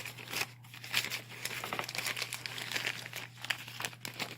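Crinkling and rustling of packaging as a new camcorder is unwrapped and lifted out of its box, irregular crackles over a steady low hum.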